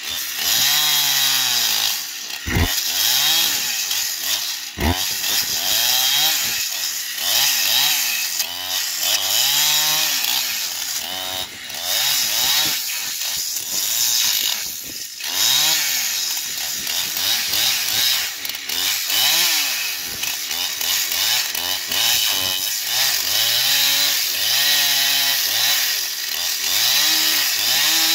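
Two-stroke Husqvarna chainsaw cutting into a thick hardwood slab, its engine pitch repeatedly dipping as the chain bogs into the wood and rising again as it frees. Two brief thumps about three and five seconds in.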